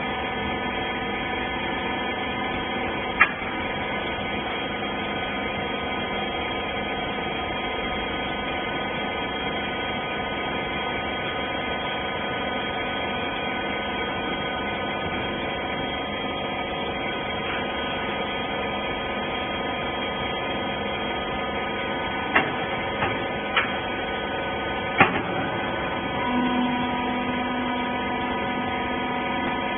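Rag baler machine running, its hydraulic pump motor giving a steady hum, with a few sharp clicks or knocks; a second steady tone comes in near the end.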